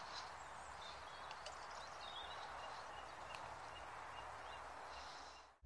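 Faint songbird chirps and whistles, many short calls scattered throughout, over a faint low rumble; it all cuts off suddenly near the end.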